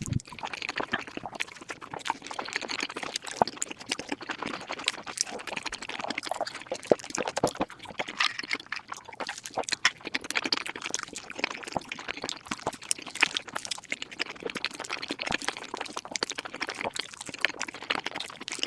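Close-miked mukbang eating sounds sped up about five times: a dense, continuous stream of rapid chewing and mouth-smacking clicks.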